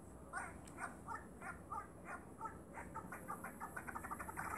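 Short animal-like calls repeated about twice a second, coming faster and faster near the end.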